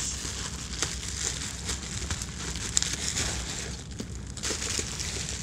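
Plastic bubble wrap crinkling and rustling as it is handled and pulled open, with scattered small sharp crackles.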